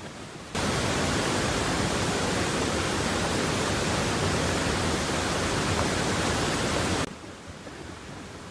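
A loud, even hiss of steady noise that starts abruptly about half a second in and cuts off suddenly about a second and a half before the end, over a fainter steady hiss.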